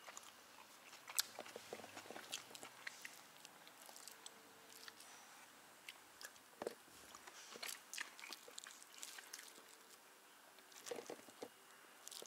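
Faint chewing and crunching of a mouthful of kottu roti with chicken. Scattered small clicks run throughout, with a sharper one about a second in and a cluster near the end.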